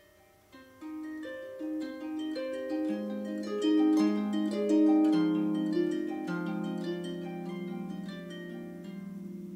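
Solo harp improvising over a four-chord progression in E-flat major: plucked strings ringing into one another, entering about half a second in and growing fuller toward the middle.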